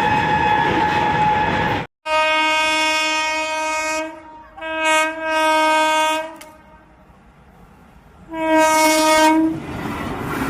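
Indian Railways locomotive horn sounding over the running noise of a train, cut off abruptly about two seconds in. Then a lower-pitched locomotive horn gives a long blast, a short one and a longer one, and after a pause of about two seconds one more blast, followed by the rumble and rattle of the train running by.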